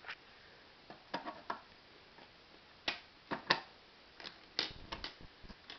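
Lego plastic parts of a gumball machine clicking and knocking as it is handled, a run of scattered sharp clicks, some in quick pairs.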